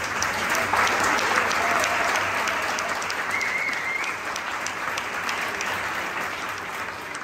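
An audience applauding in a large hall: dense, steady clapping that tapers off near the end. A short high tone rises briefly above the clapping about three seconds in.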